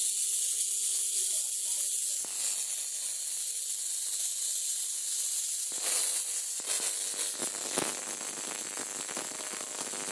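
High-voltage arc from an oil-immersed X-ray transformer, fed through a 1500 W ballast, hissing steadily. About six seconds in it turns into a rougher crackle, with one sharp snap near eight seconds, as the variac feeding it is turned up.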